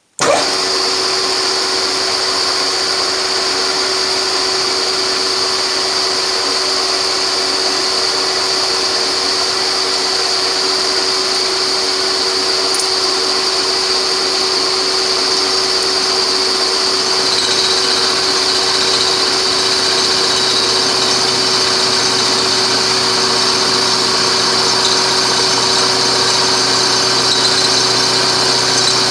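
Beaver milling machine starting up abruptly and running steadily, its reground two-flute end mill milling down into a broken titanium wheel bolt. About halfway through, its high whine drops slightly in pitch and a lower hum grows.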